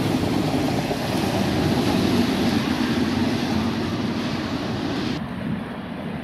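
Steady, loud rumble of the Fujiyama steel roller coaster's train running on its track. The hiss above it drops away abruptly about five seconds in.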